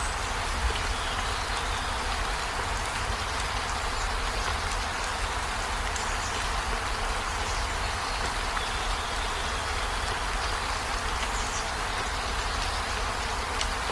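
Steady rain, an even, unbroken hiss with a low rumble underneath.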